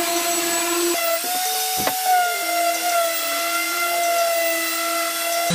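Electric orbital sander running against a wooden board, a steady motor whine that shifts in pitch a couple of times. A brief knock about two seconds in.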